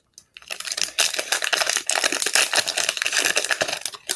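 A foil soccer trading-card pack being opened by hand, its wrapper crinkling and tearing in a dense run of crackle that starts about half a second in and stops near the end.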